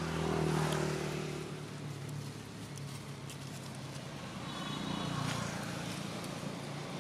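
Engine of a passing motor vehicle: a low, steady hum that swells in the first second and fades, then swells again around five seconds in.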